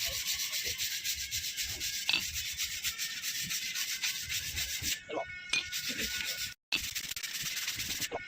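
A Maruti Suzuki Alto's brake disc being sanded to polish its surface: a steady rasping rub in quick repeated strokes, with a brief dropout about two-thirds of the way in.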